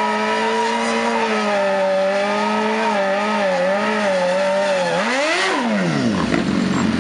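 BMW S1000RR superbike's inline-four engine held at high revs through a burnout, the rear tyre spinning in place and smoking. The revs waver a little, then about five seconds in rise sharply and drop away.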